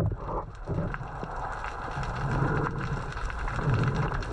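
Underwater ambience picked up through a camera housing: a steady wash of water noise with scattered faint clicks and crackles, and a few short, low, muffled sounds.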